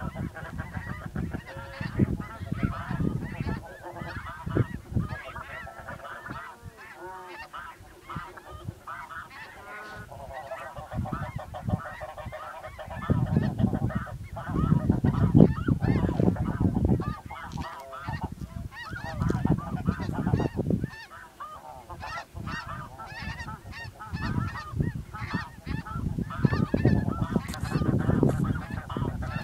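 A large flock of snow geese calling, many overlapping high honks at once, with bursts of low rumble under the calls.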